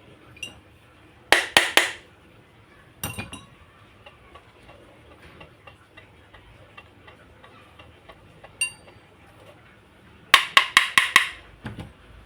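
Sharp metallic clicks and clinks in short quick runs, with a fast run of five near the end: small metal tools and fan parts being handled and tapped together.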